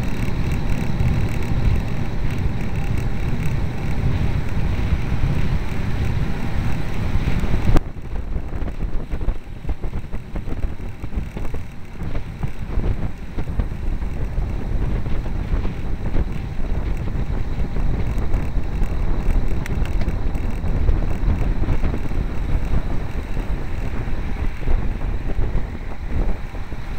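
Wind buffeting the microphone of a camera mounted on a moving road bicycle, with road rumble underneath. About eight seconds in there is a click, and the noise then drops and turns gustier and more uneven.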